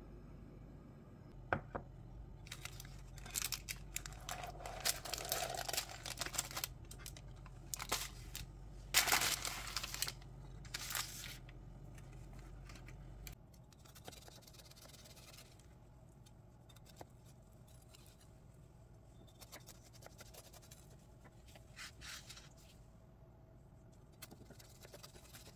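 Parchment paper crinkling and tearing in a run of sharp rustles as a baked brownie is lifted out of its tray and freed from the paper. Later come a few faint scrapes of a kitchen knife cutting through the brownie on a wooden board.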